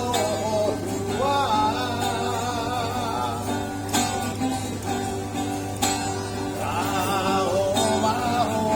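A man singing a slow Batak song with a wavering vibrato and sliding pitch, over plucked-string accompaniment.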